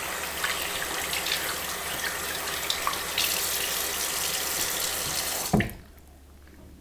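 Water running from a tap into a sink, with small splashes as hands are washed under it. About five and a half seconds in there is a sharp thump, the loudest moment, and the water stops suddenly as the tap is shut off.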